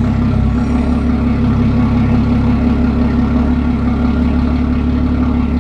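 A machine running steadily with a strong, even low hum and overtones, unchanged throughout.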